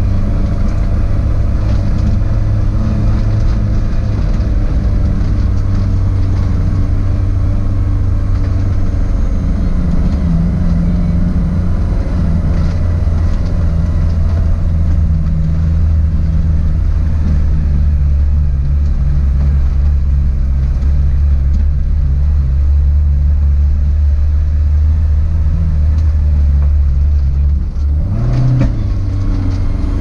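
Suzuki Jimny 4x4's engine running steadily while driving, a low drone whose pitch drifts a little. Near the end it briefly drops and then rises again.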